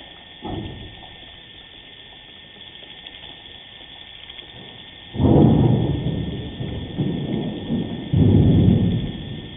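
Deep low rumble: a short one about half a second in, then a long one starting about five seconds in that swells twice over some four seconds. Under it runs a steady faint hiss with a thin high tone.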